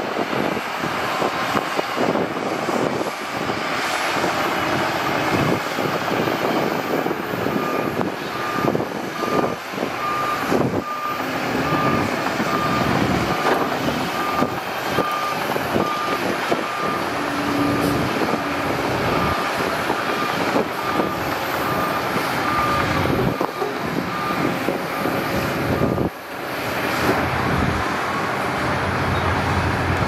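Shantui DH17C2 crawler bulldozer engine running under load as it pushes dirt, with clanking from its steel tracks. Through the middle part a reversing alarm beeps about twice a second, the sign of the dozer backing up.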